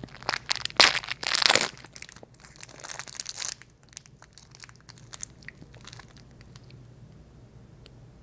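Candy wrapper crinkling as it is pulled open by hand. The crinkling is loudest and densest in the first three and a half seconds, then thins to occasional faint crackles.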